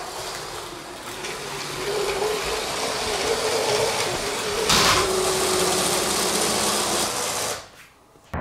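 Motorised Lego train running along the track: a steady whirring and rattling with a faint hum, a sharp clatter about four and a half seconds in, then fading out near the end.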